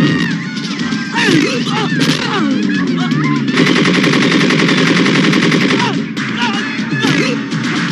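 Movie sound-effect gunfire in a chaotic action scene: single shots early on give way to a rapid, sustained burst of automatic fire from about three and a half to six seconds in.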